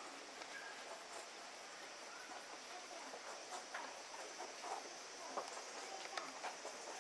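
Faint outdoor insect chorus: a steady high whine with fast, evenly spaced chirping, and a few scattered faint short sounds.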